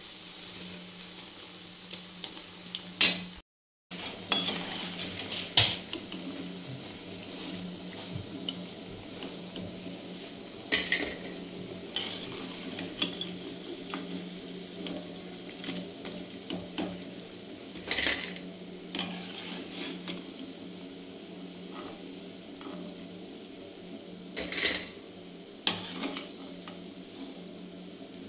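Pakoras deep-frying in mustard oil in a kadhai, a steady sizzle, with the metal slotted spoon clinking and scraping against the pan every few seconds as the fried pakoras are lifted out.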